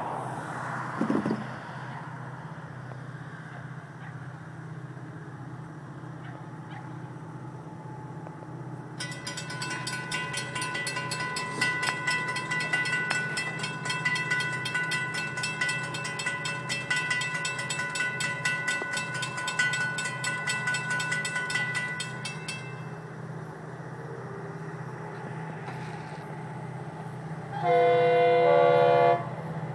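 Railroad grade-crossing warning bell ringing fast and evenly for about thirteen seconds from about nine seconds in. Near the end comes a single loud horn blast of about a second and a half from the approaching Florida East Coast Railway freight locomotive.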